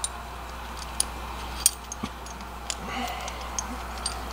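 Light, scattered metallic clinks of a steel safety chain and its hooks being handled, a few sharp ticks a second or so apart, over a low steady hum.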